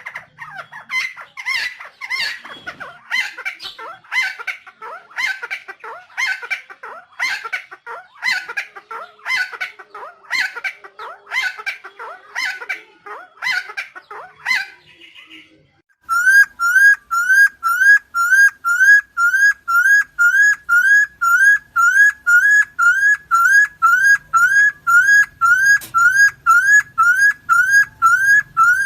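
Helmeted friarbird calling: loud, harsh notes repeated rapidly, about two a second, for some fifteen seconds. It then gives way abruptly to a steady run of identical rising whistled notes, about two a second.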